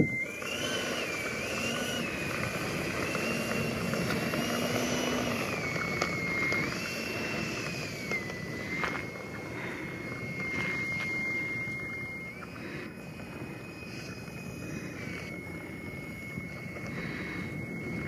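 Electric ducted fan of a Freewing F9F-8 Cougar 80mm RC jet whining at low power while the model taxis, its pitch stepping up and down as the throttle is moved. Wind noise rushes on the microphone underneath.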